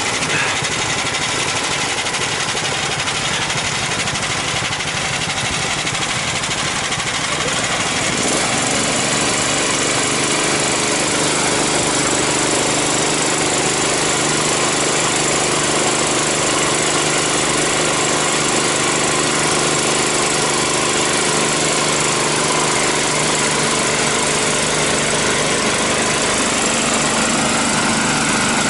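Engines of homemade all-terrain vehicles running steadily; about eight seconds in the sound grows louder, with a steadier hum, and stays there.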